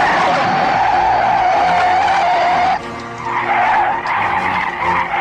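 Airliner landing-gear tyres screeching on the runway in a long, steady skid as the plane lands. The screech drops away a little under three seconds in and comes back about half a second later.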